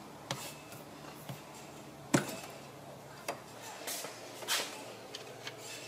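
Light clicks and knocks, the sharpest about two seconds in, with brief rubbing, from hands working a small rubber hose off the plastic air intake duct.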